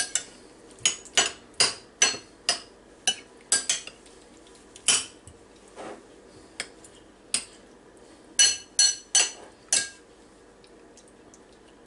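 Metal spoon clinking against a ceramic soup bowl as soup is stirred and scooped: about twenty sharp clinks at an uneven pace, stopping near the end.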